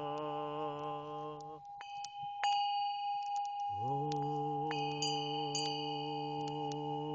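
A low voice holding one long chanted hum, breaking off about a second and a half in and sliding back up into the same held note about four seconds in, over a steady ringing tone and repeated strikes of small chimes.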